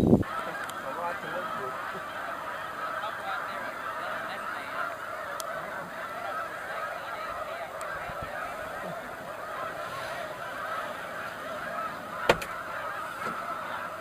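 A large flock of snow geese calling together in a steady, dense chorus, with one sharp click near the end.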